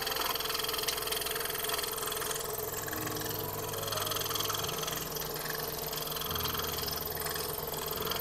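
Scroll saw running steadily, its blade cutting through a thin wooden puzzle panel. The low hum shifts in tone about three seconds in and again after six seconds.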